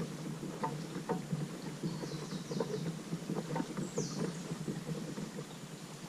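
Kayak on the water: steady splashing and sloshing with irregular small knocks and drips. A short, high, falling chirp sounds about four seconds in.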